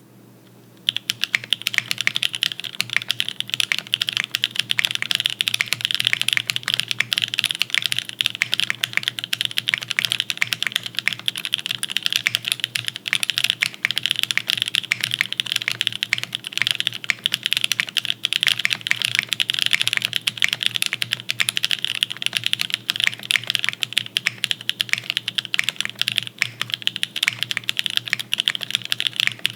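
Fast, continuous typing on a Matrix Hiya custom mechanical keyboard: lubed NK Cream linear switches on a full aluminium plate with GMK keycaps and no foam dampening. Dense keystroke clacks start about a second in and keep going without a break.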